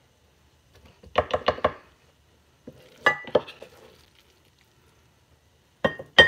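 A spatula knocking against a glass bowl while cooked rice is scooped out. There is a run of quick knocks about a second in, two or three more around three seconds, and another fast run near the end, some leaving a brief ringing tone.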